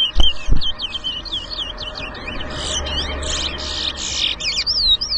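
Caged towa-towa finches (chestnut-bellied seed finches) singing competition song: quick whistled notes that swoop up and down, phrase after phrase without a break. A steady crowd murmur runs underneath, with a couple of low thumps near the start.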